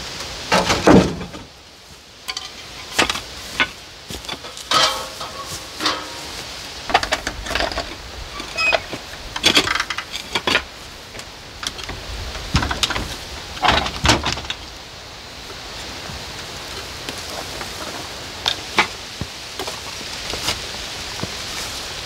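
Old wooden outhouse being taken apart by hand: irregular knocks, clatters and scrapes of boards and roofing being pried loose and dropped, a few of the hits ringing briefly.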